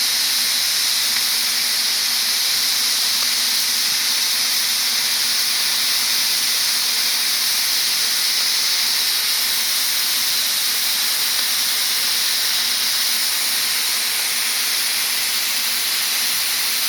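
Linde Cut-Line rail-mounted flame-cutting torch hissing steadily as its cutting jet burns through 1-1/4 inch steel plate, cutting a 45-degree bevel. The hiss is loud and even, without a break.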